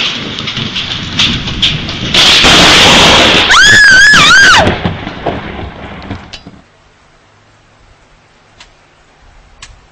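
Heavy rain, then a very close lightning strike: a sudden, extremely loud thunder crack about two seconds in that overloads the recording for over two seconds. A high wavering cry rides over it near the fourth second and falls in pitch as it ends, and the noise dies away to quiet after about six seconds.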